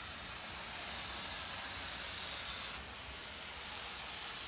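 Aerosol spray-paint can spraying in a steady, continuous hiss, dipping briefly about three seconds in.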